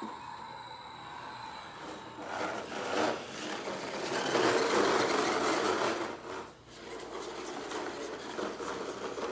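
Plastic toy vehicles being pushed across a wooden floor, their wheels rolling and scraping, loudest about halfway through.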